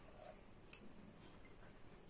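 Near silence: room tone with a few faint ticks.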